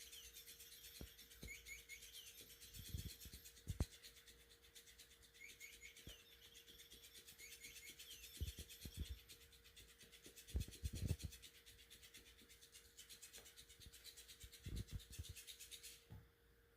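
Electronic chirping bird cat toy giving rapid repeated high chirps, which cut off suddenly near the end. Now and then there are soft low thuds and rubbing as the toy is handled.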